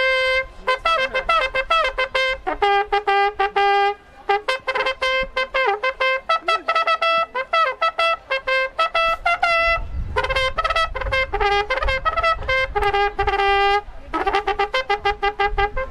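Roman straight trumpet (tuba) sounding a military signal call: runs of short, quickly tongued notes jumping between a few natural-horn pitches, with brief pauses about four seconds in and shortly before the end.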